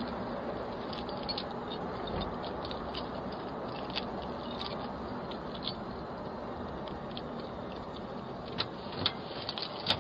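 Steady hiss from a doorbell camera's microphone, with faint scattered clicks and rustles and a few sharper clicks near the end.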